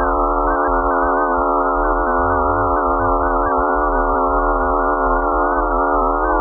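Eerie electronic drone of many layered steady tones held over an uneven low rumble: a 'space sound' presented as a signal from Mars's moon Phobos.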